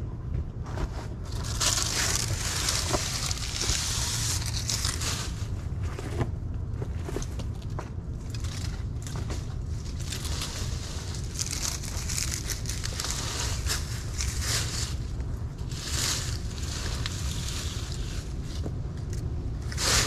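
Dry palm fronds crackling and crunching in repeated bursts, with scattered clicks, over a steady low rumble.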